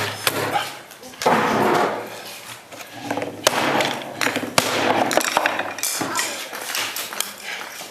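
A competition cutting knife striking targets: a series of sharp knocks at uneven intervals, with people talking.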